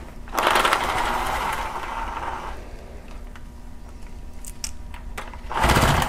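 Impact tool running in two bursts while backing out the bolts of the solenoid lock plate on an automatic transmission's valve body: a burst of about two seconds soon after the start, and a shorter one near the end.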